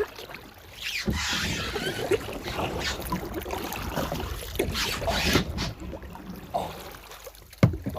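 Kayak paddle strokes with water splashing, a swish roughly every two seconds.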